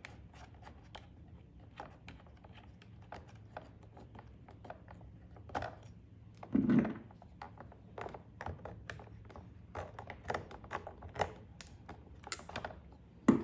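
Scattered light clicks, taps and scrapes of plastic and metal parts of a pressure washer's pressure switch assembly being handled and tightened by hand, with one dull thump about seven seconds in.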